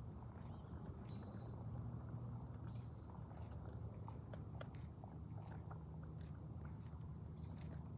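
An animal chewing on something, with scattered faint crunching clicks over a low steady hum.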